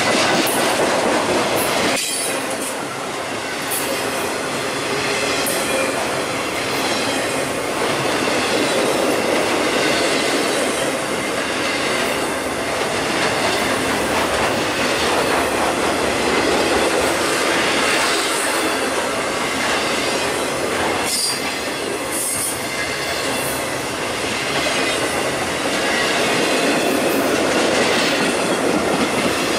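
BNSF intermodal freight train's cars rolling past close by: a steady, loud noise of steel wheels on rail. There are a few sharp clicks and brief high squeals.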